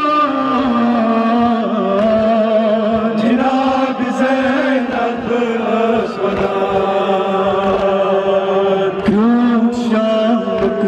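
Male voice chanting a Kashmiri noha (Muharram mourning lament) into a microphone, amplified over a loudspeaker, with long held notes that waver in pitch.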